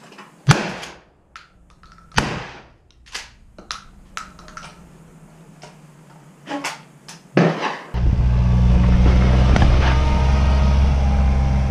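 Two shotgun shots about a second and a half apart, the first about half a second in, followed by lighter clicks and knocks. About eight seconds in the sound cuts to the steady low engine drone of a small utility vehicle.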